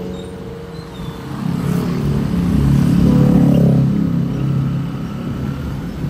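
Street traffic of motor scooters and a car, engines running close by; one engine hum swells loudest around the middle, then fades as it pulls away.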